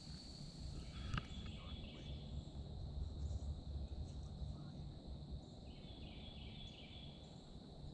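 Night ambience beside a swamp river: a steady high insect trill, with short chirping calls about a second in and again around six seconds, over a low rumble.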